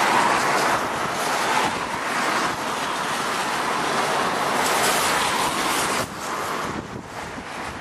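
Strong wind buffeting the microphone: a loud, even rushing noise that eases about six seconds in.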